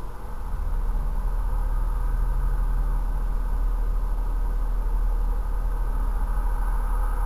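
Steady low rumble of a car engine idling, heard from inside the stationary car's cabin; it grows a little louder about half a second in.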